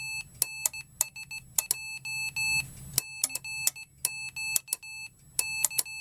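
Morse code sidetone from an electronic keyer board's small loudspeaker, keyed by a home-made iambic paddle: a buzzy beep just under 1 kHz sounding in long dashes and short dots, with a sharp click at the start and end of each element.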